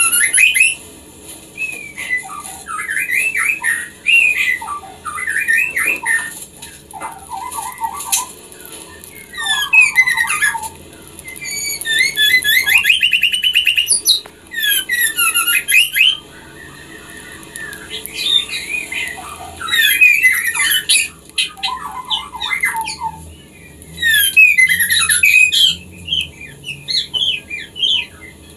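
Female white-rumped shama (murai batu) in breeding condition calling for a male. Bursts of varied chattering and whistled phrases come with short pauses between them, and a rapid trill comes about halfway through.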